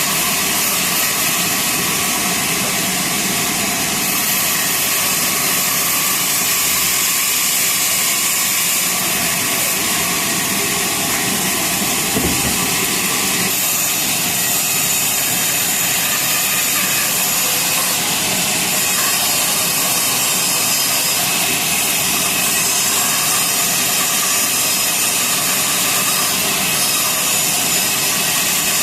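Sawmill saw running steadily through a hardwood log, a loud, even machine noise with a strong high hiss. One short knock about twelve seconds in.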